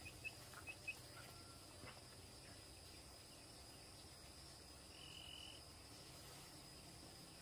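Near silence with faint rural ambience: a few short, high chirps in quick pairs in the first second, a steady faint high whine, and one brief buzz about five seconds in, typical of insects and small birds.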